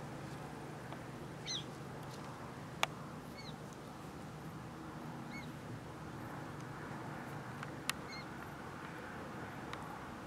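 Short, high chirping animal calls, one every couple of seconds, with two sharp clicks about three and eight seconds in, over a low steady hum.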